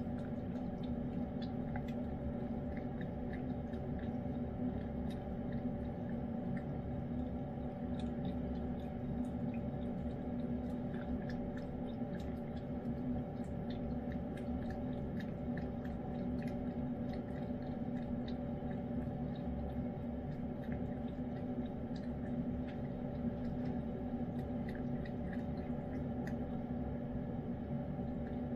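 A cat chewing and licking soft wet cat food, heard as many small wet clicks, over a steady low hum.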